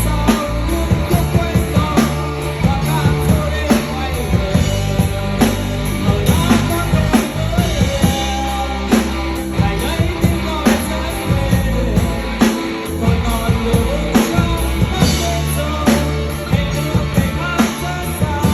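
Rock song with a steady drum-kit beat, guitar and a singing voice.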